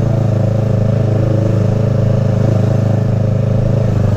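Yamaha R3 parallel-twin engine idling steadily through an M4 slip-on exhaust.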